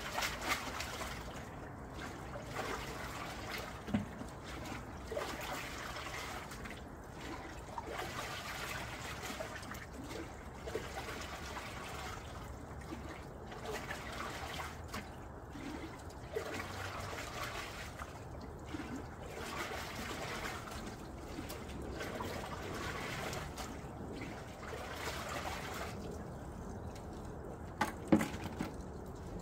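Water scooped and poured back into a koi grow-on tank again and again, splashing in surges a second or two long, done to get oxygen into the water while the power, and so the tank's aeration, is off. A couple of sharp knocks near the end as the tank's lid is set back down.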